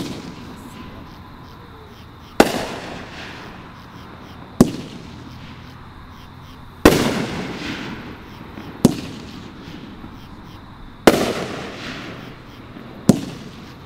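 Aerial fireworks going off: a sharp bang about every two seconds, each trailing off in a long echo.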